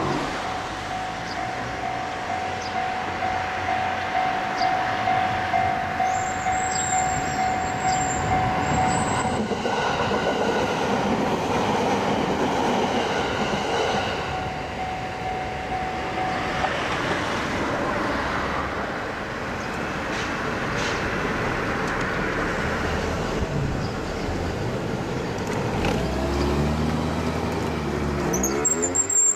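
JR 209 series electric train running through a level crossing, its wheels clattering over the rail joints. A level-crossing alarm rings as a steady tone through the first half and stops about halfway through.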